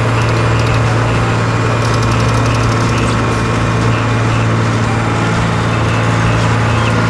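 An engine or motor running steadily at a constant speed, with a strong low hum.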